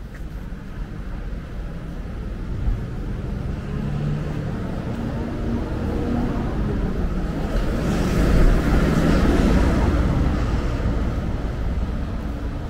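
Town street traffic: engines of queued and passing cars, vans and a lorry. The rumble builds as a vehicle passes close about two-thirds of the way through, the loudest moment, then eases off.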